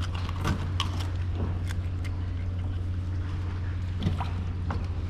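Soft clicks and rustles of hands handling fishing tackle, over a steady low hum.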